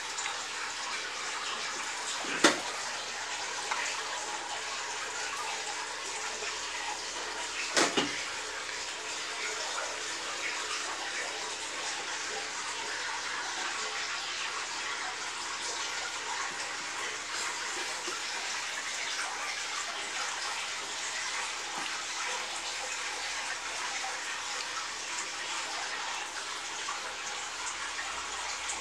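Steady splash and trickle of running water in a fish tank. Two sharp knocks stand out, about two and a half and eight seconds in.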